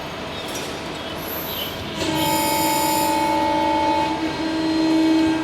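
CNC hydraulic press brake running, with a steady machine whine that starts about two seconds in and holds.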